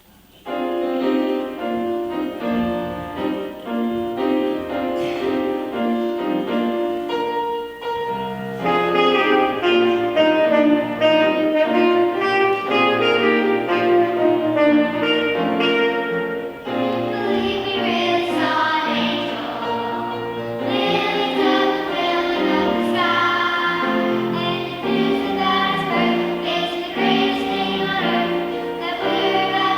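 Music for a church choir's Christmas musical: full instrumental accompaniment, with choir singing.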